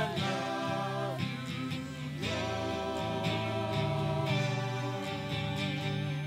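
Worship band playing: voices singing a slow song over acoustic guitars, holding a long note from about two seconds in almost to the end.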